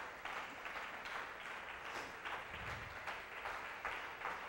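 Congregation applauding steadily with many hands clapping at the end of a sermon.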